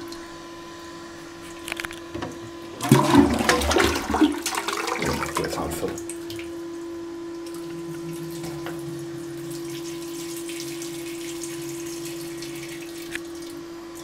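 A 2015 Balterley Beo Regent Premier close-coupled toilet being flushed: a loud rush of water starting about three seconds in and lasting about three seconds. Then the cistern refills through its fill valve with a steadier hiss that fades out near the end.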